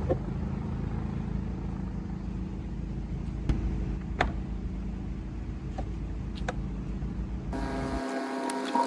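Steady low background hum with a few light clicks and knocks of plastic grille and bumper parts being handled. Near the end the hum drops out abruptly and rapid clicking starts.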